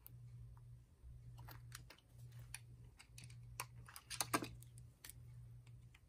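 Correction tape dispenser pressed and drawn across a planner page, then handled and set down: a scatter of small clicks and taps, with the loudest cluster about four seconds in.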